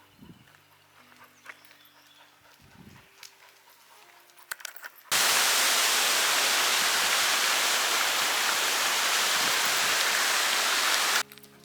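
A loud, even rushing hiss that cuts in suddenly about five seconds in and stops just as abruptly shortly before the end. Before it there are only faint steady tones.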